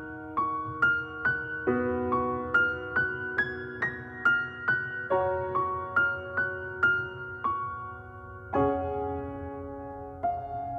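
Background music: a slow piano intro, single notes about two a second over held chords.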